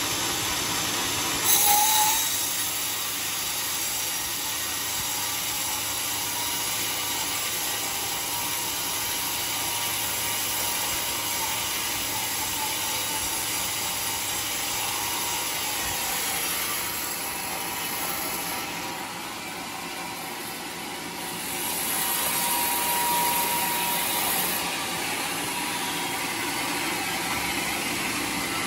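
Sawmill band saw cutting lengthwise through a large teak log: a steady, noisy whir of blade, wood and machinery, with a sharp louder moment about a second and a half in and a louder stretch a little past the middle.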